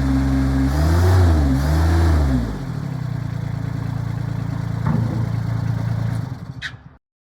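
Kubota diesel engine of a Bobcat MT55 stand-on skid steer running steadily, revved briefly twice about a second apart, then settling back to a steady lower run. The sound fades out shortly before the end.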